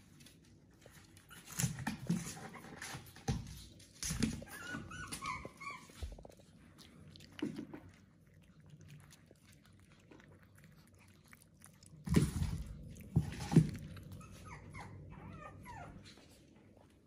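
Pomeranian puppies whimpering in two short bouts of high, wavering whines, among scattered knocks and clatter.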